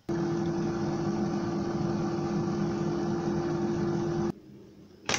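Grand Family air fryer running on its cooking cycle: the fan gives a steady whir with one clear humming tone over the rush of air, cutting off abruptly about four seconds in.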